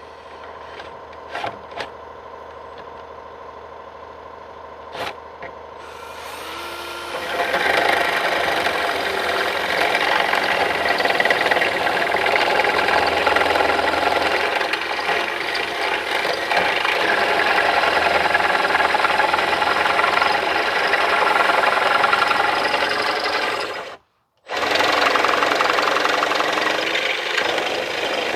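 A few faint ticks, then about six seconds in a power drill starts and runs steadily, boring out a hole in soft metal with a 3/8-inch cobalt bit. It stops for a moment near the end and starts again.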